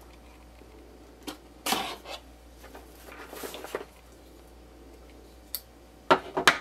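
Cardboard mailer box being cut open and handled: scattered scrapes, rustles and clicks, with a quick cluster of sharp scrapes near the end.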